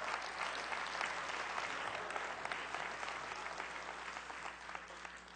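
Congregation applauding: many hands clapping together, dying away near the end.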